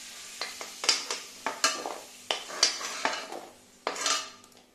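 Metal spoon scraping and clinking against a kadhai (Indian wok) as fried potato cubes are scooped out of the hot oil. There are about seven sharp strokes over a low sizzle of oil that fades toward the end.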